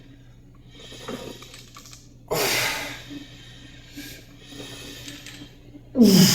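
A man's sharp, forceful exhales with grunts during a weightlifting set. Two loud ones come about four seconds apart, each dropping in pitch, with softer breaths between them.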